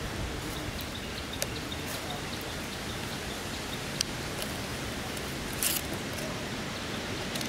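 Steady outdoor background hiss, with a few sharp clicks and a short rustle a little before the end.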